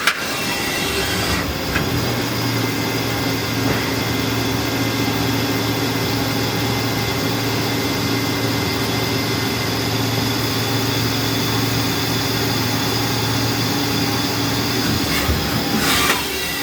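1996 Haas CNC lathe running a program without cutting: a steady machine hum with a low tone that comes in about a second and a half in and stops shortly before the end, followed by a couple of knocks.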